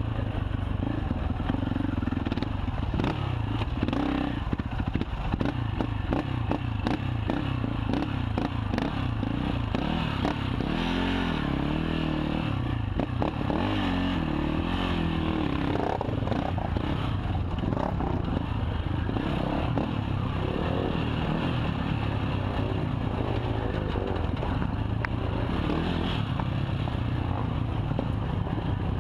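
KTM 450 XC quad's single-cylinder four-stroke engine running under throttle, with the chassis clattering and rattling over rough ground. About ten seconds in, the engine note rises and falls repeatedly for several seconds.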